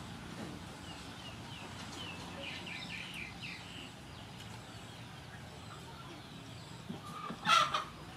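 Small birds chirping in a quick run of short falling notes a couple of seconds in, then a short, loud bird call near the end, the loudest sound.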